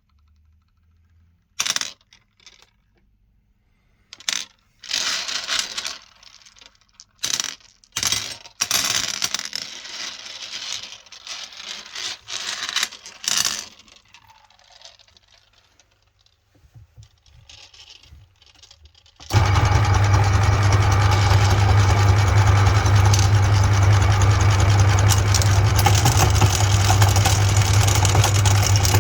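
Intermittent clicks, clatters and rustles of small hard pieces of candy being handled. About two-thirds of the way in, a meat grinder's motor switches on and runs steadily with a strong low hum.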